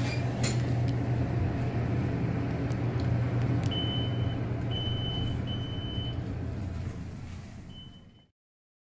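Glass elevator car travelling, with a steady low machine hum. About halfway through a series of high beeps sounds, four in all, each under a second long. The sound cuts off abruptly near the end.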